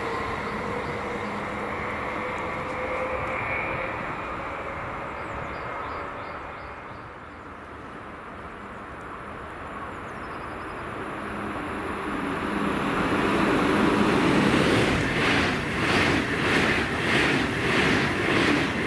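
A BLS MUTZ double-deck electric train running away into the distance, its motor whine sinking slightly in pitch as it fades. Then an SBB double-deck intercity train grows louder and passes close by in the last few seconds, with a loud rhythmic clatter from its wheels, about one and a half beats a second.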